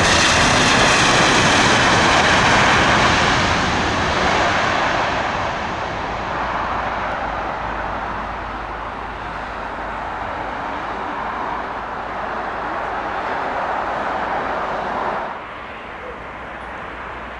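Jet engines of an Airbus A321-200 airliner during its landing rollout, loud with a high whine just after touchdown and then fading steadily as it slows and moves away down the runway. About 15 seconds in the sound cuts off abruptly and gives way to a quieter, steady engine sound from the next airliner on approach.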